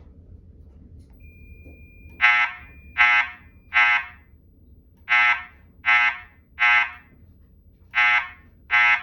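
Wheelock ET70WP-2475-FR fire alarm speaker strobe, driven by a Wheelock SP40S SafePath panel, sounding the temporal-3 evacuation tone: three short horn-like beeps, a pause, then three more, repeating. The tones start about two seconds in and come before the voice evacuation message.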